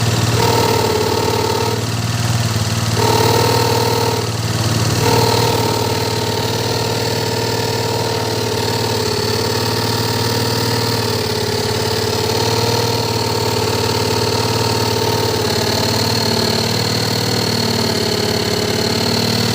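Automatic scooter's engine and CVT running at idle: a steady hum with a thin high whine over it. This is the snoring, noisy CVT sound the owner is tracking down.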